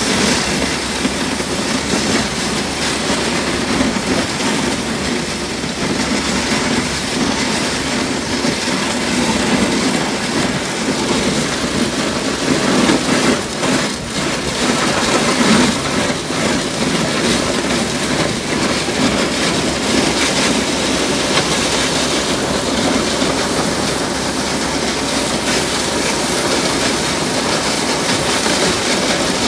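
Ford F-350 pickup driving and pushing deep snow with a Boss DX-T V-blade plow: a loud, steady noise of engine and snow against the blade, swelling a little around the middle.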